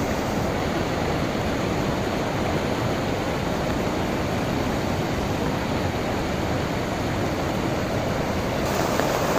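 Flooded mountain river in spate: fast, turbulent muddy water rushing with a steady, unbroken noise.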